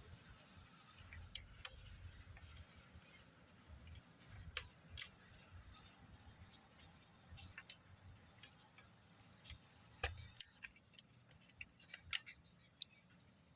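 Faint, irregular clicks and light knocks of a mechanical keyboard's plastic parts being handled and fitted back together by hand, with a low rumble of handling between them.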